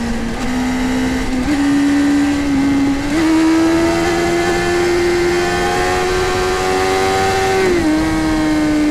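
Sport motorcycle engine running at road speed over wind rush. Its pitch climbs gradually in small steps, then drops sharply near the end.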